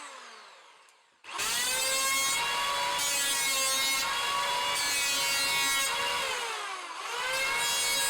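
Electric power saw cutting wood. Its motor whine falls away at the start, then spins up just over a second in to a steady high pitch. About six and a half seconds in it sags briefly in pitch and recovers.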